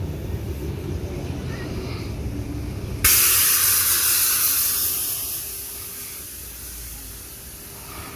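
Train at the platform: a low rumble, then about three seconds in a sudden loud hiss of compressed air released from the train, fading away over the next few seconds.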